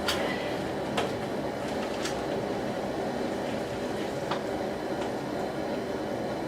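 Steady rushing noise of the gas burner under the pot of boiling water, with a few light clicks and knocks as the crawfish strainer goes into the pot.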